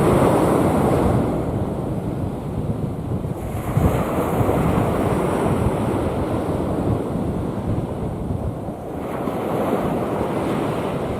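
Rough sea waves breaking and washing in, swelling in three surges a few seconds apart, with wind buffeting the microphone.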